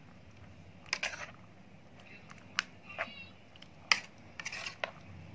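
Metal spoon stirring thick yogurt raita in a bowl, with scattered sharp clinks of the spoon against the bowl and short scrapes. A brief high squeak comes about three seconds in.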